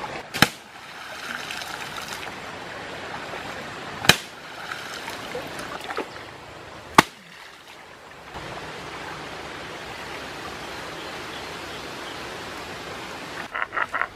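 Flowing river water with three sharp thuds, a few seconds apart, as a wooden spear jabs into the muddy bank. Just before the end, a fast rhythmic rasping begins.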